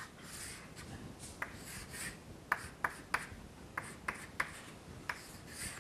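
Chalk writing on a chalkboard: scratchy strokes as lines are drawn, with a series of sharp taps and clicks of the chalk against the board.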